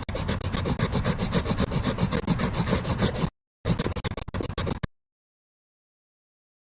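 A drawing tool scribbling on paper, the rapid back-and-forth strokes of colouring in, several strokes a second. It pauses briefly a little past three seconds in, resumes for about a second and a half, then stops.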